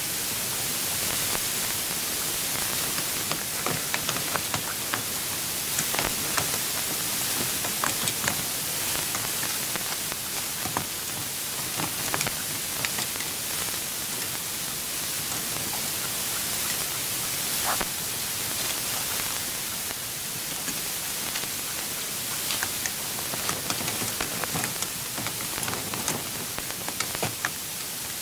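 Steady hiss with many short, faint clicks scattered through it.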